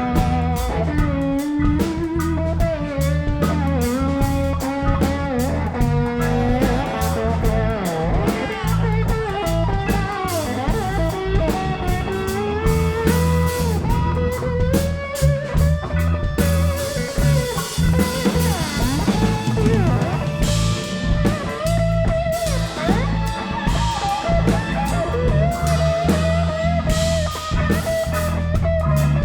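Live blues-rock band playing an instrumental break: a bending electric guitar lead over bass and drum kit.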